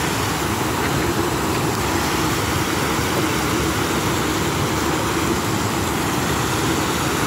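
Water pouring over a low concrete dam into the pool below: a steady, unbroken rush.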